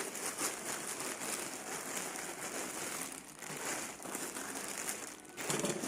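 Parcel wrapping crinkling and rustling as it is pulled and worked open by hand, with a steady stream of small crackles.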